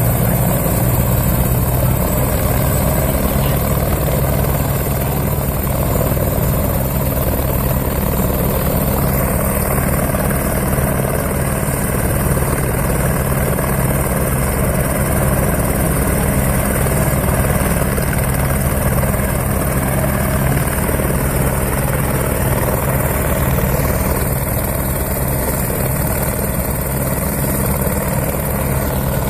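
Helicopter running steadily on the ground with its rotor turning.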